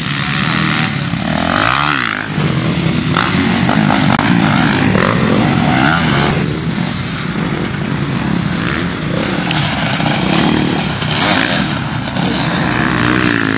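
Motocross dirt bike engines revving hard on a dirt track, the pitch rising and falling with the throttle as bikes accelerate and pass close by.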